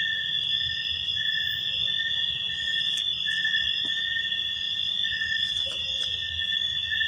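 Night insects chirring: a steady, unbroken high-pitched drone, with a second, lower trill that starts and stops every second or so.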